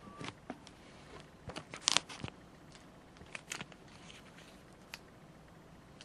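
Small objects being handled at a table: scattered clicks, taps and rustles, the loudest cluster about two seconds in.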